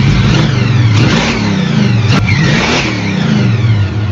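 Car engine being revved: a steady run at first, then the pitch climbs and falls several times as the throttle is blipped.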